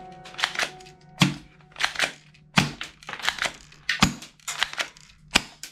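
Black plastic toy pistol being handled and clicked: a string of sharp clicks, irregularly spaced at two or three a second, with faint music underneath.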